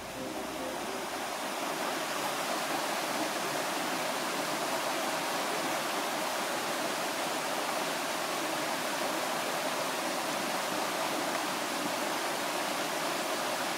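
A shallow stream running over rocks and small cascades: a steady rush of flowing water.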